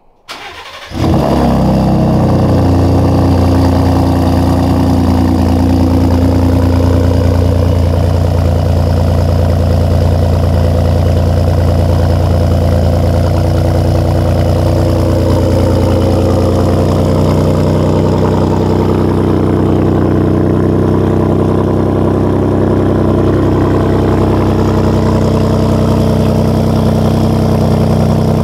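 Gen 2 Ford Raptor's 3.5-litre twin-turbo EcoBoost V6 cranking and catching about a second in, then idling steadily: the first start after fitting new aftermarket downpipes.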